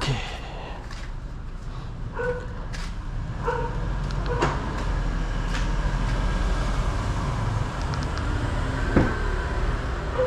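Footsteps and handling knocks on a concrete walkway, with a few short yips from a dog in the first few seconds, over a steady low rumble. A sharp click about nine seconds in.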